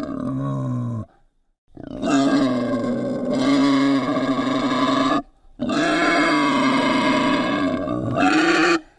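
Wild boar calling: three long pitched calls with short breaks between them, the first about a second long and the next two about three seconds each.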